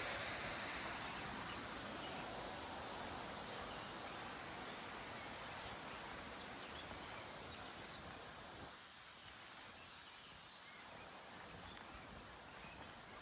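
Steady rushing of water at a pond's dam outlet, fading away as the walker moves off along the path, with a few faint bird chirps.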